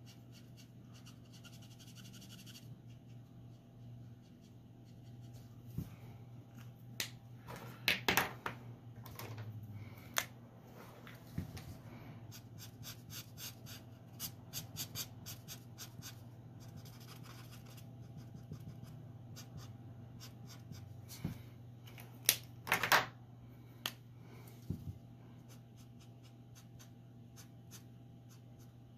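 Copic alcohol marker nibs scratching on paper in many short strokes, with a few louder clicks as markers are handled and swapped. A faint steady low hum runs underneath.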